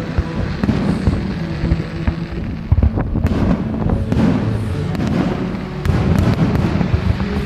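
Fireworks display: a dense, continuous run of bangs and crackles from bursting shells, with the loudest bang a little under three seconds in.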